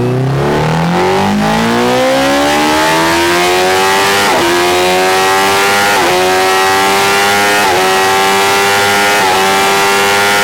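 Honda CBR1000RR inline-four engine under load on a dyno, revs climbing steadily and then shifting up four times with a quickshifter, about a second and a half apart. Each shift is a brief dip in the revs as the quickshifter kills the ignition for the upshift, with no pause in the throttle.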